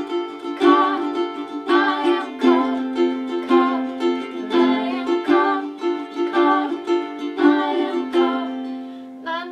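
Electric ukuleles playing an instrumental passage of a song: a steady, repeating picked figure, growing quieter near the end.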